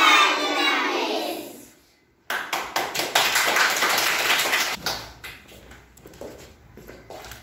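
Children's voices reciting together fade out, then many hands clap in a small room. The applause is dense for a couple of seconds, then thins to scattered, quieter claps.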